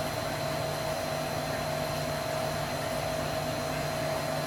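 Steady whir of a running motor or fan, with a constant hum and no change in level.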